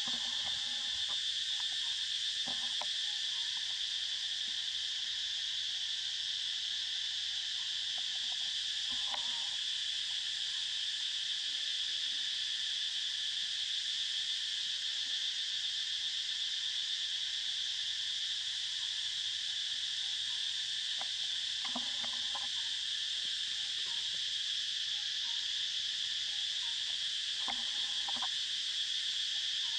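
Steady high-pitched buzzing chorus of forest insects, unbroken throughout, with a few brief faint calls lower down three times.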